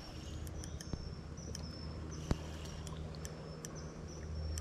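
Spinning reel cranked during a lure retrieve: a low steady whirr. Short high-pitched chirps come again and again over it, and there is a sharp click a little past two seconds in.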